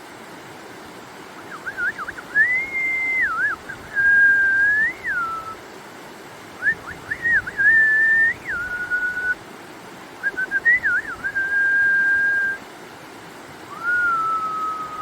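A person whistling a free, wandering tune in four phrases. Each phrase opens with quick flicking trills and settles into long held notes that glide from one pitch to the next.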